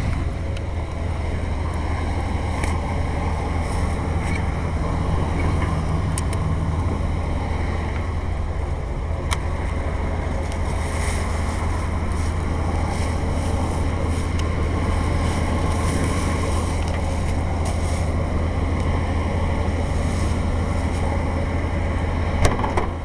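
1988 Chevy Silverado 1500's engine idling steadily after a cold start, running nice and quiet on newly fitted exhaust manifolds. A couple of light clicks sound over the idle.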